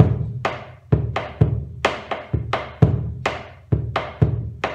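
Bombo legüero played with two wooden sticks, deep strokes on the hide head alternating with sharp clicks on the wooden rim, roughly two strokes a second. It is the basic 3/4 accompaniment rhythm for gato and chacarera, mixing its different forms.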